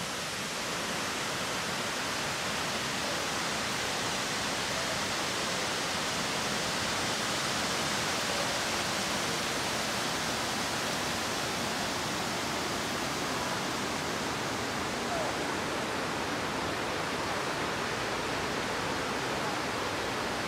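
Steady rush of water pouring over a dam spillway and running through the rocky river below, an even hiss with no breaks.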